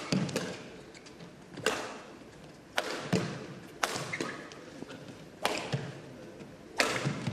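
Badminton rackets striking a shuttlecock back and forth in a doubles rally: sharp cracks, about one a second, each ringing briefly in a large hall.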